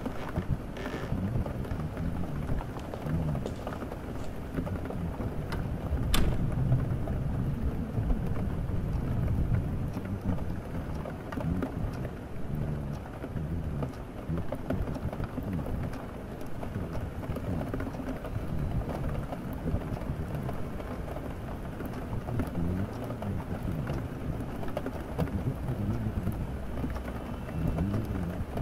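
Steady rain with a low rolling rumble of distant thunder that swells and fades, and a single sharp click about six seconds in.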